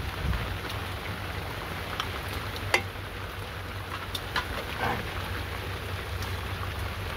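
Steady rain falling, with a low steady hum underneath and a few sharp ticks, the loudest about three seconds in.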